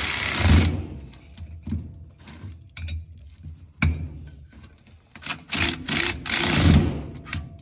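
A power tool runs briefly and stops under a second in, then runs again for about a second and a half near the end, driving bolts on a UTV's primary clutch. Metal parts clink and tap in between.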